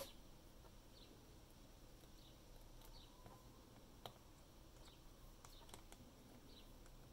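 Near silence: room tone with a few faint, scattered light clicks and ticks, one slightly louder about four seconds in.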